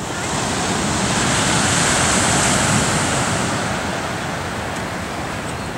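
Ocean surf breaking and washing up a sandy beach, swelling to a peak about three seconds in and then slowly fading.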